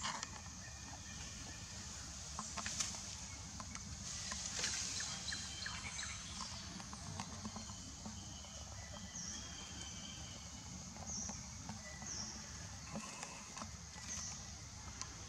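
Outdoor ambience: a steady low rumble with short high-pitched chirps, repeating every second or two in the second half, and a few faint clicks.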